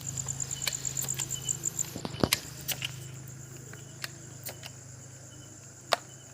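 Crickets chirping at night, a steady high-pitched trill that pulses rapidly for the first two seconds, over a faint low hum. Scattered sharp clicks and knocks cut through it, the loudest about two seconds in and again near six seconds.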